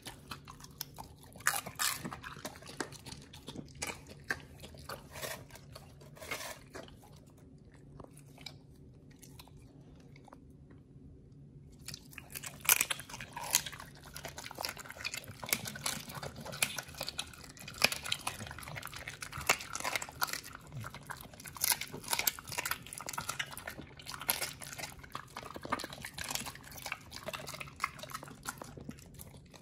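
A pit bull chewing and biting raw meat close to the microphone: wet, crackling chews and crunches. There is a quieter lull of a few seconds about seven seconds in, then the chewing picks up again and keeps going.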